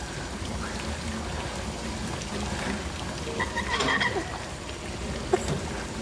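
Steady low rumble of a flooded valve room with water trickling, and a short cluster of creaky sounds about four seconds in as valves are turned by hand.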